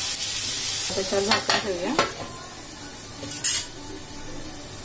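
Prawn masala sizzling in a kadhai while a steel spatula stirs and scrapes it, with a few sharp clicks of the spatula on the pan between one and two seconds in, and the sizzling dying down. About three and a half seconds in, a steel plate set over the pan as a lid makes one short, loud clank.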